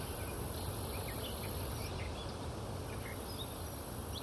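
Quiet outdoor ambience: a steady high-pitched hiss that breaks off for a moment about two seconds in, over a low rumble, with faint scattered bird chirps.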